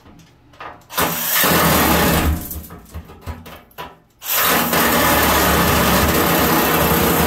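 Ryobi 18V One+ brushed reciprocating saw with a metal-cutting blade cutting into a metal bathtub: a short burst of sawing about a second in, a pause with a few knocks, then steady sawing from about four seconds in.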